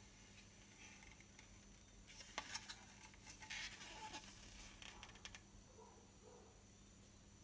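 Faint clicks, taps and rubbing of a hard ABS plastic truck cab body being handled and turned over in the hands, bunched in the middle of an otherwise near-silent stretch.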